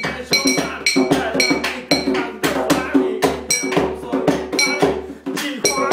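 A man rapping over a quick percussive beat of sharp, clinking, cowbell-like hits.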